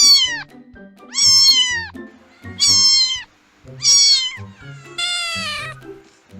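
Kittens meowing, five high-pitched meows in a row, each about half a second long and falling in pitch at the end, the last one longer. Soft background music plays underneath.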